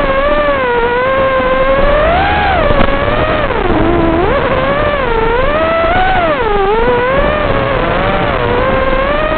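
FPV quadcopter's motors and propellers whining, the pitch rising and falling over and over as the throttle changes, with a deep drop about four seconds in.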